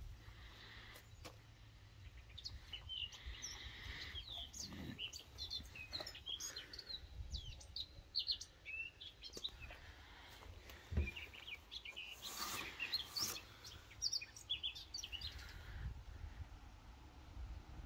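Small birds chirping and twittering, many short quick calls, over a low rumble, with a single sharp knock partway through.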